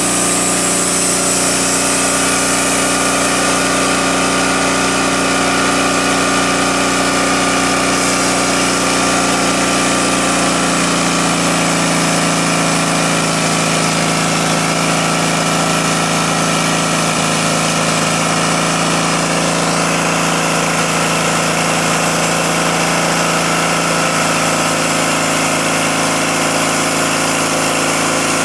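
Portable sawmill engine running steadily, its pitch stepping up slightly about ten seconds in.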